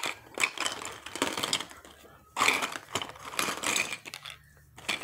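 Plastic play-food pieces and their plastic tray being handled, clattering and rustling in irregular bursts with short pauses between them.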